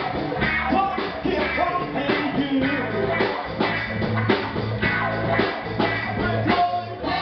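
Live indie band playing a blues-funk song: a singer's lead vocals over electric guitar, steady low bass notes and a drum kit keeping a regular beat.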